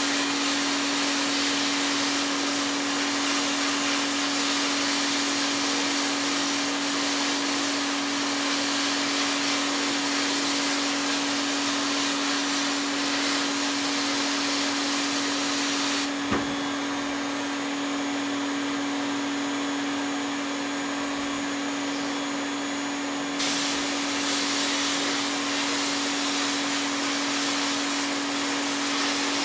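Sandblast cabinet gun blasting revolver parts with compressed air and abrasive: a loud, steady hiss over a steady motor hum. A little past halfway the blasting stops for about seven seconds, leaving only the hum, then starts again.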